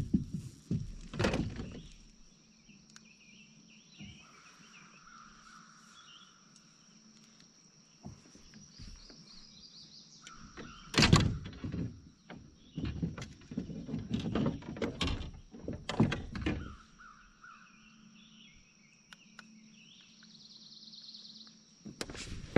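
Thumps and knocks of gear being handled against a plastic fishing kayak, once about a second in and then in a run from about 11 to 17 seconds, loudest near 11 seconds. Birds sing faintly in the quieter stretches between.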